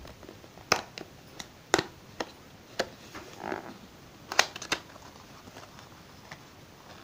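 Small cardboard box being opened by hand: a series of sharp clicks and taps from the flaps and inner tray, the loudest about four and a half seconds in, with a short scraping rustle about three and a half seconds in.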